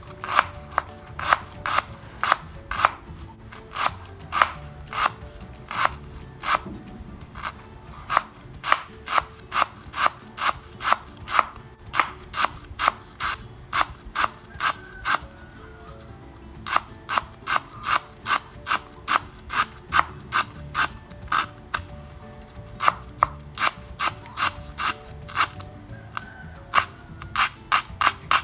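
Kitchen knife thinly slicing lemongrass stalks on a bamboo cutting board: each cut ends in a sharp knock of the blade on the board, about two a second, with a few short pauses.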